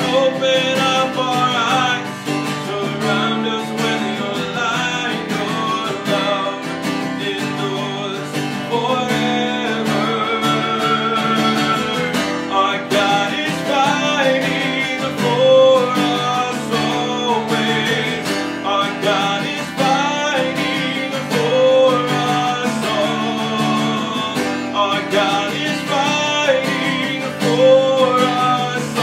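A man singing a worship song, accompanying himself on a strummed acoustic guitar.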